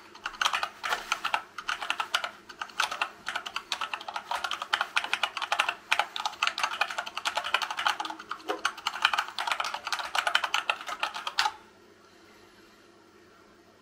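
Fast touch-typing on a hand-wired Dactyl Manuform split keyboard with silicone-lubed Gateron Brown tactile switches in a wood-filament 3D-printed case: a rapid, continuous run of key clacks that stops suddenly about two seconds before the end, leaving only faint steady hiss.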